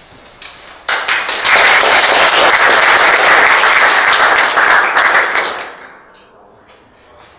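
Audience applause, starting abruptly about a second in, holding for several seconds, then fading away.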